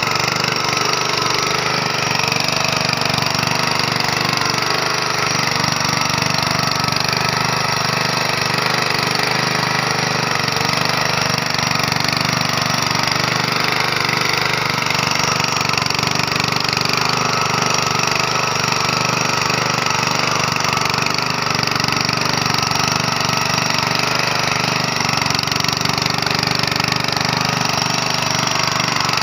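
Honda GX160 5.5 hp single-cylinder engine running steadily at an even speed.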